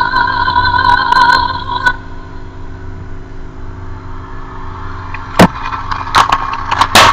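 The tail of background music, a few steady held tones, ends about two seconds in, leaving a low steady hum. Near the end come a few sharp clicks as a makeup product is handled.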